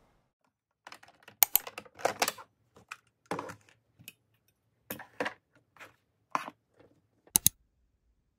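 About a dozen irregular sharp clicks and knocks of small hard objects being handled, with silence between them. A quick double knock near the end is among the loudest.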